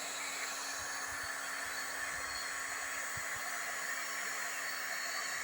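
Steady airy hiss of a hot-air plastic welding gun blowing, with a faint low hum underneath.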